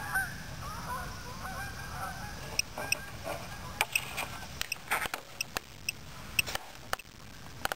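Gamma-Scout Geiger counter ticking irregularly, about a dozen sharp clicks over the last five seconds. Each click is a detected count from the radioactive pink granite it is held against. Geese honk faintly in the first two seconds.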